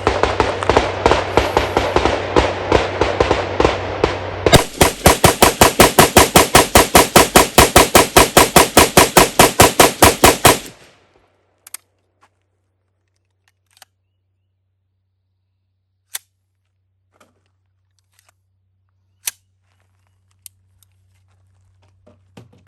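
Rapid fire from an AR-15 with a short 5-inch 300 Blackout barrel, emptying a 30-round magazine. A dense, continuous stretch of loud shots gives way about 4.5 s in to an even string of sharp shots, roughly six a second, which stops about 11 s in. A few faint clicks follow.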